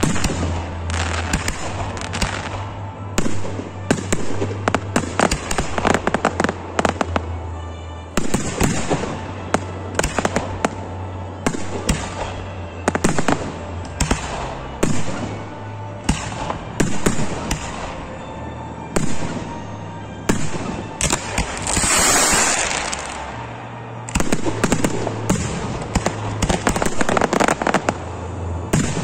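Display fireworks going off: aerial shells and firework batteries fire and burst in rapid, irregular bangs, with a longer crackling hiss about three-quarters of the way through.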